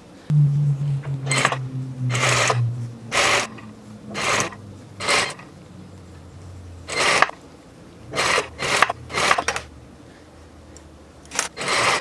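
Fabric being handled at a sewing machine: a string of short rasping, rubbing strokes, about one a second. A low hum starts near the beginning, sinks in pitch and fades out about halfway through.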